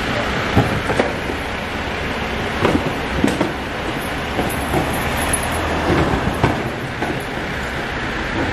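Rear-loading garbage truck running at the kerb, with irregular clunks and rattles as wheelie bins are hooked onto its rear lifter and tipped, over a steady rumble of engine and passing traffic.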